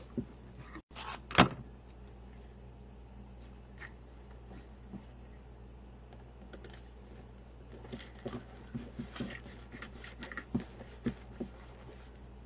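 Light rustling and scattered small clicks of ribbon being ruffled and twisted onto a wire wreath frame with twist ties, with one sharper click about a second and a half in and a run of small ticks and rustles from about eight to eleven seconds. A steady low hum runs underneath.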